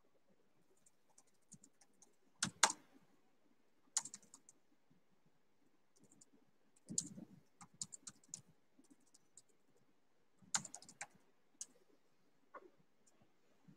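Faint, irregular clicks and taps on a computer keyboard, in scattered clusters with a few louder knocks among them.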